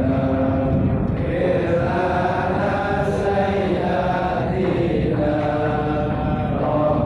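Men's voices chanting an Islamic devotional chant in unison, melodic and sustained, amplified through handheld microphones.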